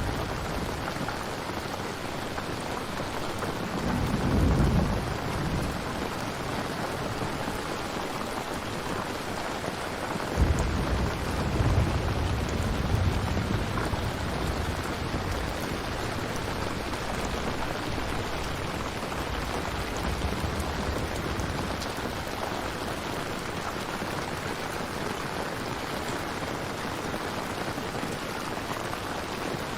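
Steady rain falling during a thunderstorm, with thunder rumbling low: a short roll about four seconds in, then a stronger clap around ten seconds in that rumbles on for a few seconds.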